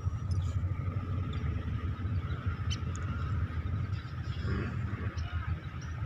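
Wind buffeting a phone microphone as a continuous, gusting low rumble, with a faint steady high tone and a few faint short chirps over it.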